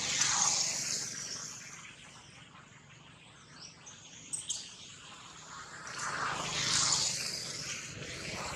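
Outdoor ambience: a rushing noise swells up and fades away twice, with a few short bird chirps and a couple of faint ticks in the quieter stretch between.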